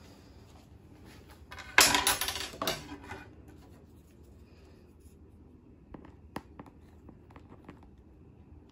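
Thin clear plastic tub being handled: a sudden crackle of plastic lasting about a second, then a few light clicks and taps later on.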